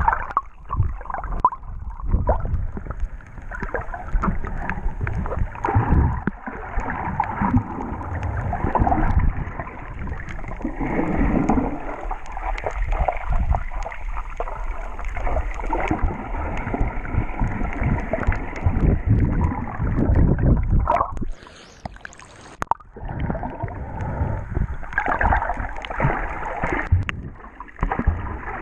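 Muffled rushing and gurgling of water against a camera held underwater while snorkeling. Near three-quarters of the way through it drops away briefly before returning.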